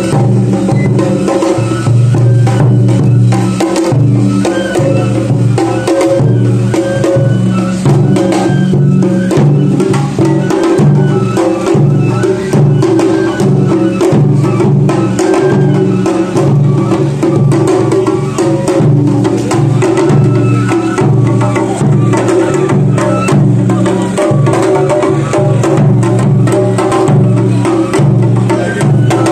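Japanese festival hayashi drumming on a drum float: a large taiko and smaller drums struck in a fast, unbroken rhythm of sharp strokes.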